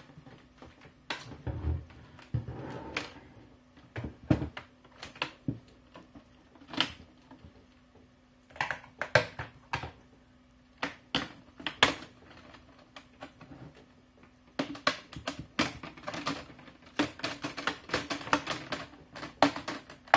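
Plastic snap clips of a laptop screen bezel clicking and popping free as the bezel is pried off the lid by hand. The clicks come scattered at first, then in a dense run over the last five seconds.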